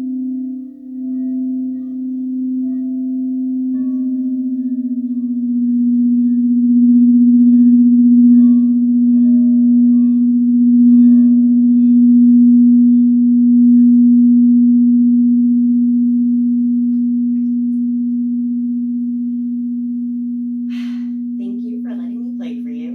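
Quartz crystal singing bowl sounding one low, steady tone with faint overtones. It swells with slow pulses through the middle, then dies away slowly over the last several seconds.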